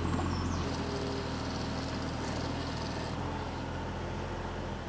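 JCB mini excavator's diesel engine running steadily, a low even drone.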